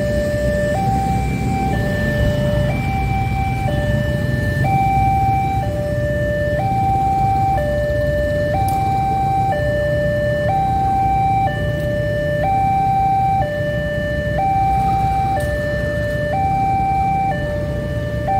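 Railway level-crossing warning alarm sounding its two-tone electronic signal, switching between a lower and a higher tone about once a second, as a warning that a train is at the crossing. Underneath is a steady low rumble from a diesel-hauled tank-car train and road traffic.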